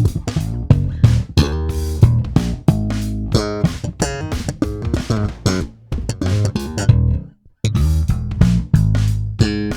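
Warwick Corvette $$ NT five-string electric bass with a bubinga body, played solo: a quick run of sharply plucked notes. The playing drops out briefly about three-quarters of the way through, then picks up again.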